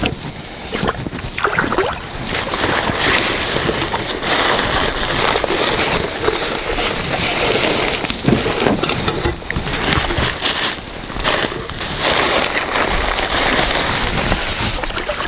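Water sloshing and splashing, with scattered knocks.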